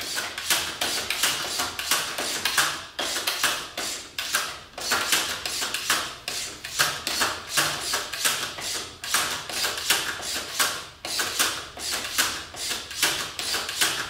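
Battery-powered Fantastic Gymnastics toy clicking as its spinning bar swings the plastic gymnast figure around, about three clicks a second in an even run.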